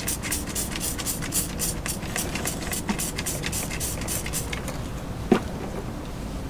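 Trigger spray bottle of Zep degreaser squeezed rapidly, about five short hissing sprays a second, stopping about four and a half seconds in. A single sharp knock follows about five seconds in.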